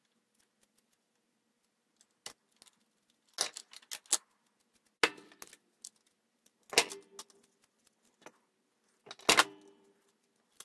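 Metal hand tools, a wire stripper/crimper and pliers, clicking and clinking as they are handled and a red insulated spade connector is crimped onto a wire. After about two seconds of quiet come a handful of short separate clatters, some with a brief metallic ring.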